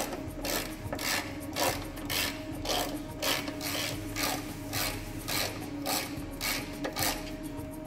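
Hand ratchet wrench clicking in repeated short strokes, about two a second, as the air suspension compressor's mounting bolts are run in and tightened.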